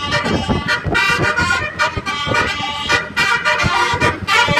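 Basuri bus horn, a multi-tone electric horn, playing a tune in a run of loud held notes that change pitch every fraction of a second.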